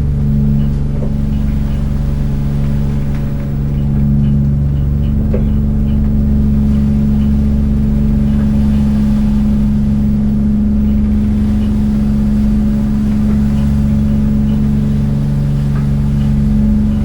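Fishing boat's engine idling at the dock with the boat standing still, a steady low drone that holds an even pitch and level throughout.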